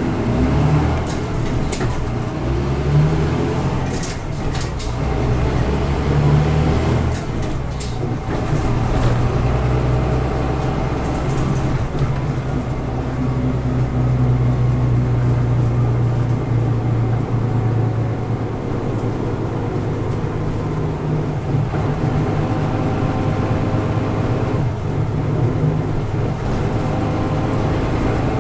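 Interior running sound of a Mitsubishi KK-MK23HJ medium-size city bus: its diesel engine pulls up through the gears in the first several seconds, then runs steadily at cruising speed, with a few brief clicks from the cabin.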